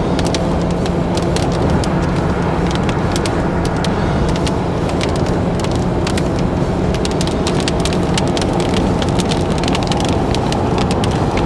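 Car driving at highway speed, heard from inside the cabin: steady road and engine drone, with many small sharp ticks on the body or glass that come thicker toward the end.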